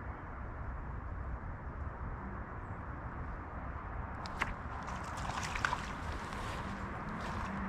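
Steady rumble of wind on the microphone over running creek water. About halfway through come a sharp click and then light splashing and ticking.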